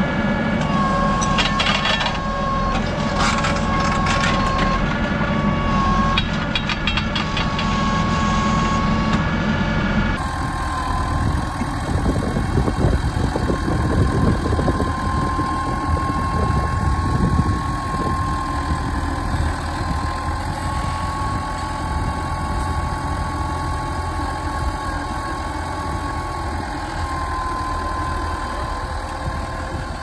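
Ford tractor's diesel engine running steadily under load as it pulls a reversible plough through the soil. For the first third it is heard close from the plough, with rattles and clanks over the engine.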